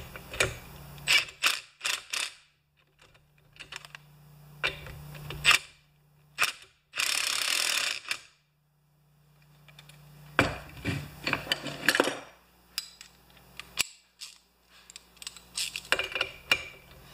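Socket ratchet clicking in short runs while tightening the flywheel nut on a Homelite XP 1020 chainsaw's crankshaft. One run about seven seconds in is so fast that the clicks blend into a buzz for about a second, and there is a dense cluster of clicks around ten to twelve seconds in.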